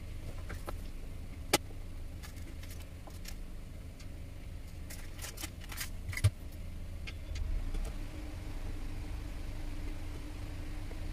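Scattered light clicks and taps of hard plastic parts and screws being handled as a car armrest storage box's base plate is fitted and screwed down. There is a sharper click about a second and a half in and another about six seconds in, over a low steady hum.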